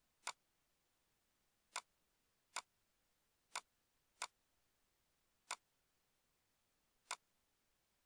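Computer mouse clicking: seven sharp single clicks, unevenly spaced.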